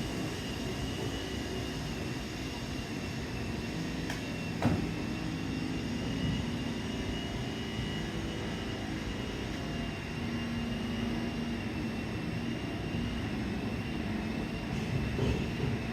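Construction machinery running steadily: a low engine drone with a constant high whine above it, and one sharp knock about four and a half seconds in.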